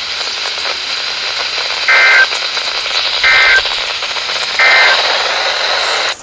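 Weather radio receiver playing steady static hiss, broken by three short warbling two-tone data bursts about a second and a half apart: the EAS/SAME end-of-message code that closes an alert test. The hiss cuts off abruptly near the end as the broadcast drops out.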